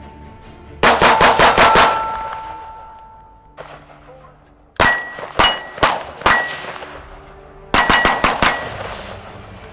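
Three rapid strings of five or six gunshots, with the hits ringing steel target plates, which hum on briefly after each string. The strings come about a second in, around five seconds in and near eight seconds.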